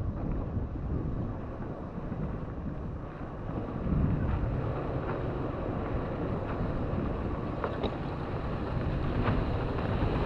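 Toyota FJ Cruiser's 4.0-litre V6 and tyres rumbling steadily as it drives slowly over a rough dirt trail, with a few light knocks from the rough ground and wind buffeting the microphone.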